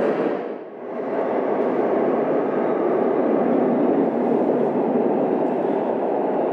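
Santiago Metro Line 6 train running, a steady rumble that drops out briefly under a second in and then holds.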